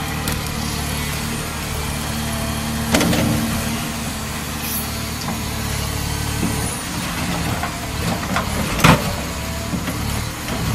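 Caterpillar 336E excavator's diesel engine running steadily under hydraulic load as its crusher bucket works a pile of rubble, with two sharp knocks of rock in the bucket, about three seconds in and again near the end.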